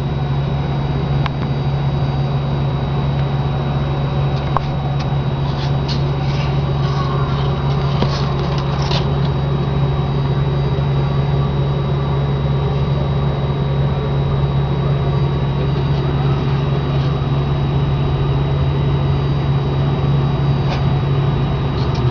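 A steady, loud low machine hum with a faint steady high tone above it, and a few light clicks between about five and nine seconds in.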